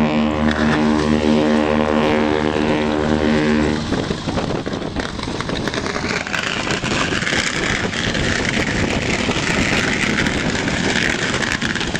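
The QE2's fog horn sounding a deep, steady blast that cuts off suddenly about four seconds in. After it comes a steady rushing noise.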